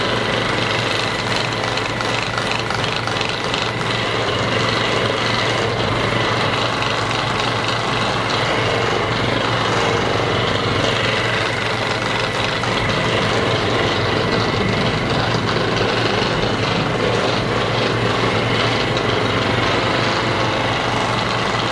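Percussive massage gun running steadily, a constant mechanical vibrating buzz.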